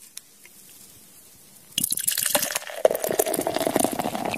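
Lager being poured into a drinking vessel, starting about two seconds in and running on steadily.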